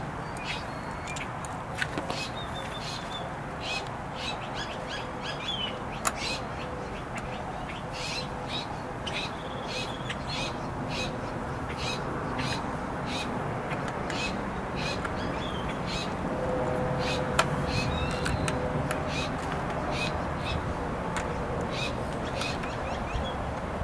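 Birds chirping over and over, short high calls coming in quick runs, over a steady background hiss. A few sharp clicks stand out, the loudest about two-thirds of the way through.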